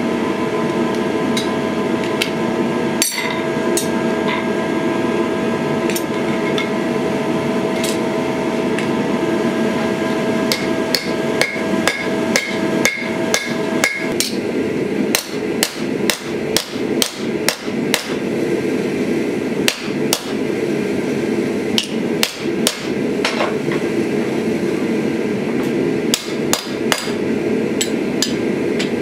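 Hand hammer striking a small copper habaki blank on a steel anvil: repeated sharp metal-on-metal blows, irregular and often several a second, with short pauses. A steady hum runs underneath and thins about halfway.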